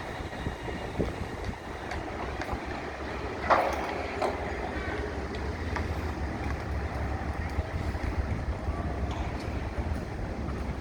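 Wind buffeting the microphone over a steady low rumble of a construction site, with one sharp bang about three and a half seconds in and a fainter knock just after.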